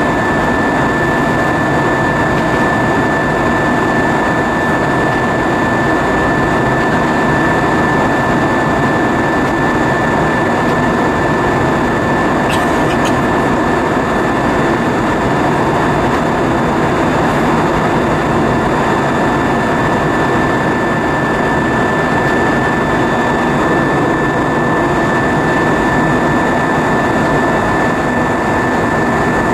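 Airbus A320 cabin noise in flight: a steady, loud roar of airflow and engines with a thin steady whine over it.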